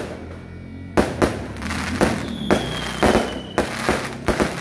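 Aerial fireworks bursting overhead: about ten sharp bangs in quick, uneven succession with crackling between them. A thin high whistle, falling slightly in pitch, runs for about a second in the middle.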